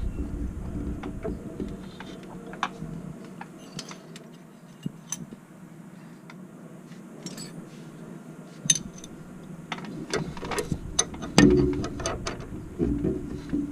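Scattered metallic clicks and clinks of hand tools being worked on brake line fittings, growing busier near the end with a run of knocks and handling noise.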